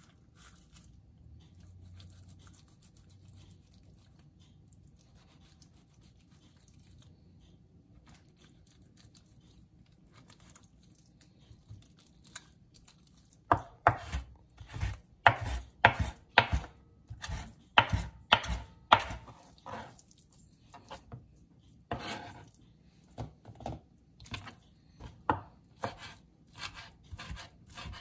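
Chef's knife chopping raw lobster tail meat on a plastic cutting board. After a quiet first half, a run of sharp, irregular knocks begins about halfway through, coming about one or two a second.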